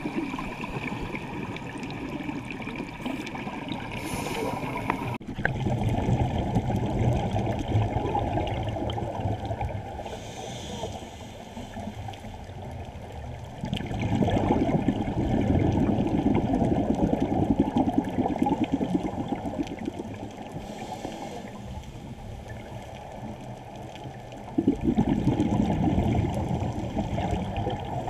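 Scuba diver's exhaled air bubbling out of the regulator, a gurgling, bubbling rush. It comes in three long exhalations about ten seconds apart, with quieter breaks between them.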